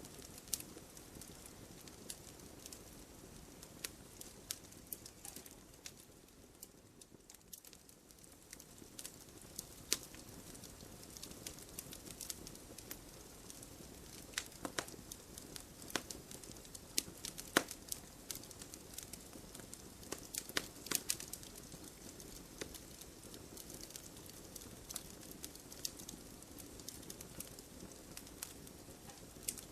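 Wood fire burning in a fireplace: a soft steady rush of flame with irregular crackles and sharp pops of the logs, the pops thickest and loudest in the middle stretch.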